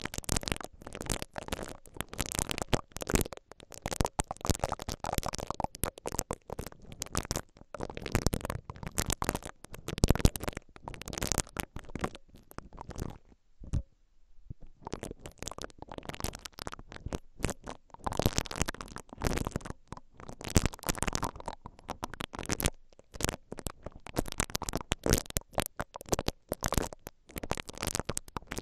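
Silicone bristle ear-pick brush rubbing and scratching directly on the mesh grilles of a stereo recorder's X/Y microphones, a dense crackling scratch close on the mic. It stops briefly about halfway through as the brush moves from one microphone to the other.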